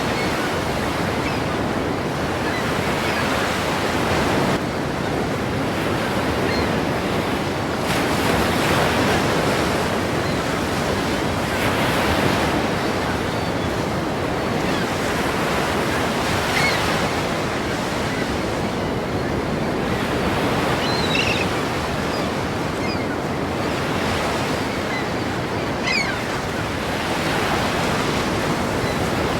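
Ocean waves breaking in a continuous surf, swelling every few seconds as each wave crashes.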